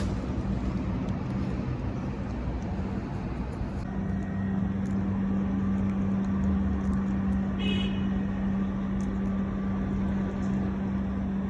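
A motor vehicle's engine running with a steady low hum over a haze of traffic noise, the hum growing stronger about four seconds in.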